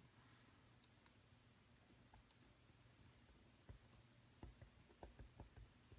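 Near silence with faint, scattered clicks and taps of a pen writing a word by hand on paper, most of them in the second half.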